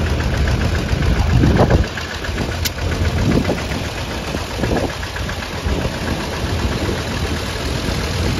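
Allgaier vintage tractor's diesel engine running steadily with a low rumble, a little quieter after about two seconds.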